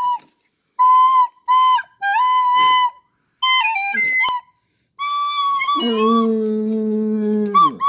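Short high flute-like notes played on a small red toy pipe, stepping between pitches with a falling run near the middle. About six seconds in, a large dog joins with a low, steady howl under a held pipe note, its pitch dropping as it ends.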